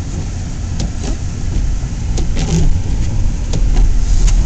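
Car driving, heard from inside the cabin: a low engine and road rumble that grows steadily louder, with a few light clicks and knocks.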